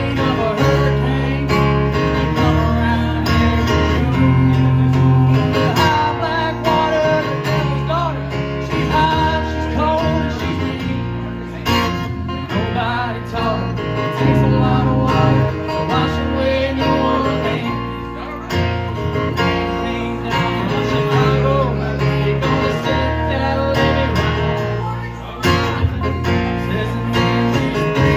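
A country-rock song led by strummed acoustic guitar over a bass line that moves from note to note.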